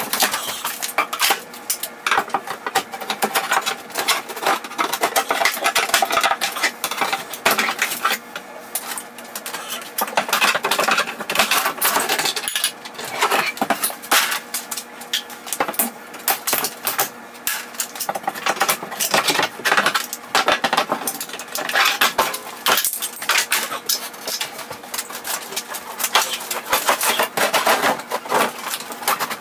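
Thin wood wall paneling being pried and torn off a wall: a continuous, rapid clatter of cracks, snaps and knocks.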